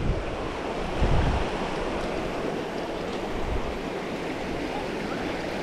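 Shallow rocky stream running over stones in a riffle: a steady rush of water. There are a couple of low thumps in the first second and a half.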